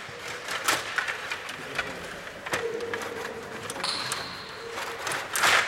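Stiga table hockey game in play: irregular plastic clicks and knocks from the rods, figures and puck. A steady tone sounds for about a second partway through.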